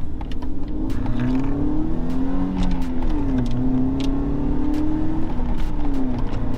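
BMW 1 Series engine accelerating hard, heard from inside the cabin: the engine note rises, falls at a gear change about three seconds in, then climbs again and falls at another change near the end.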